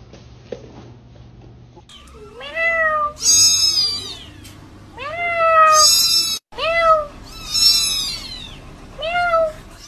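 Young kittens mewing loudly in turn: about six high-pitched meows, each rising then falling in pitch, starting about two seconds in.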